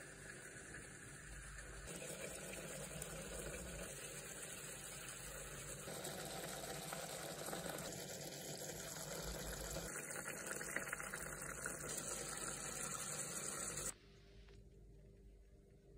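Tandoori-marinated chicken chunks sizzling in a non-stick pan on the stove, a steady hiss that cuts off abruptly near the end.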